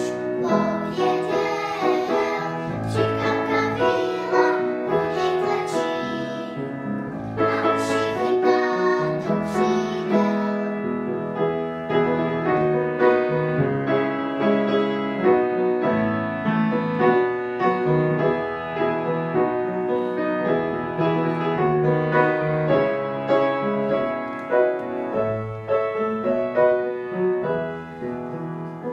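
A small group of young girls singing together with piano accompaniment; about ten seconds in the voices drop out and the piano plays on alone.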